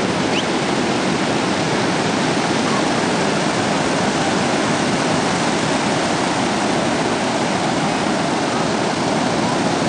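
Ocean surf breaking along the shore, a steady, even rush of water noise.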